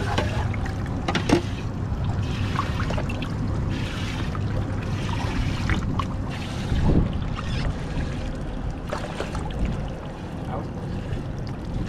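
Water sloshing and trickling in a boat's livewell as a dip net scoops through it for live baitfish, with small splashes and knocks, over a steady low rumble.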